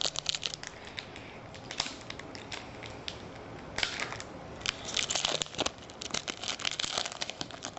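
A shiny trading-card pack wrapper crinkling and tearing as it is opened by hand: irregular crackles, with louder rustles about four and five seconds in.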